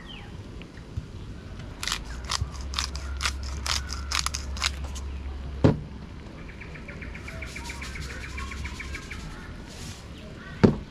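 A spice shaker shaken over a frying pan: a quick run of about ten rattling shakes, ending in a sharp click. A few seconds later a bird gives a fast chirping trill, and there is another sharp click near the end.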